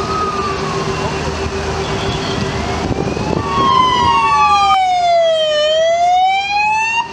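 Police siren wailing: a slow sweep that falls and then rises again starts about three and a half seconds in and becomes the loudest sound, over steady vehicle noise.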